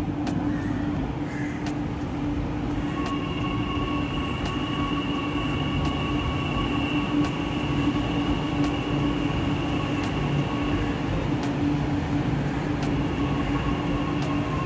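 Chennai Metro train running into the platform, its electric drive giving a steady whine over the rumble of the cars rolling past, with faint regular ticks about every second and a half.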